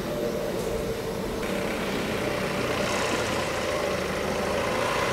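A steady mechanical drone under a broad hiss, which grows brighter from about a second and a half in.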